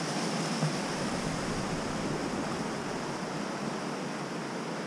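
Rushing water of a small rocky mountain stream: a steady, even noise.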